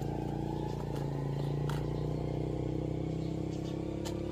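A motor running steadily with an even low hum, and a few faint light clicks over it.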